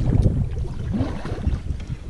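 Wind buffeting the microphone as a low rumble, strongest in the first second, over the water sounds of a kayak being paddled.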